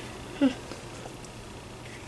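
One brief voiced sound about half a second in, its pitch falling, then quiet room tone.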